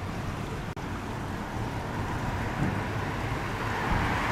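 Roadside outdoor noise: wind rumbling on the microphone, with a hiss of road traffic that grows louder in the second half.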